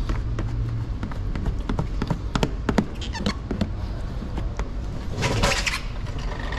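Plastic squeegee working paint protection film onto a car bumper: scattered taps and clicks with a few short squeaks, then a spray bottle spritzing about five seconds in, over a steady low hum.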